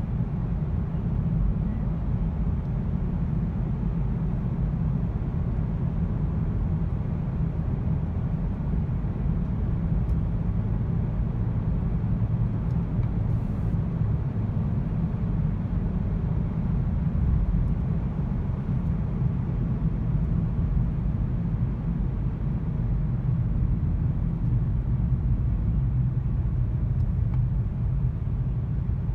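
Volkswagen car engine running with a misfire, heard as a steady low rumble.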